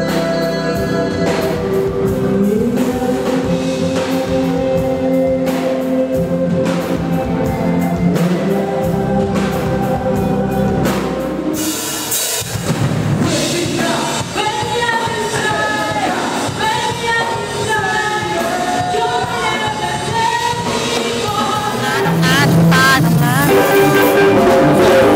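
Live band music with singing and a drum kit, from contest performances; it breaks off abruptly about halfway and a different song with a different singer takes over.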